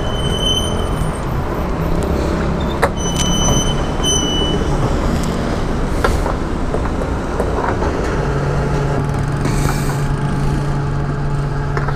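Fuel-station petrol pump: a few short electronic beeps in the first four seconds, then from about eight seconds in a steady hum as the pump delivers fuel into a scooter's tank. Street traffic noise runs underneath.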